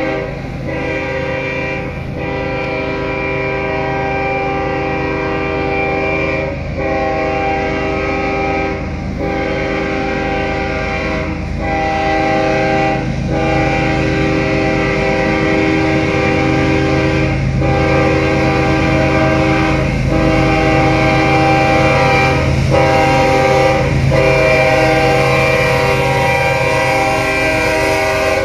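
Diesel freight locomotive's multi-note air horn blowing in long, nearly continuous blasts with brief breaks every few seconds, over the low rumble of the approaching train's diesel engine. The lead unit is a GE.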